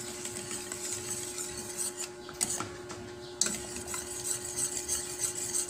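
A utensil stirring a thick cornstarch sauce in a pan, scraping the bottom and tapping lightly against the pan in irregular clicks, over a faint steady hum.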